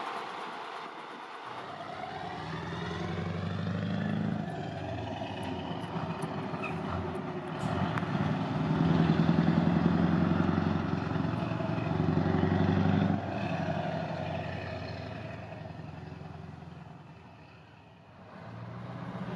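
Scania T530 V8 truck with an open exhaust, driving past under power. The engine note climbs and drops back a few times, is loudest around the middle, then dies away near the end.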